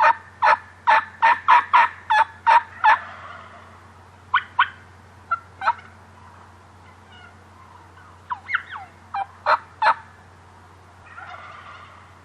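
Turkey calling: a quick run of about nine sharp, loud notes over the first three seconds, then a few shorter runs of two to four notes later on.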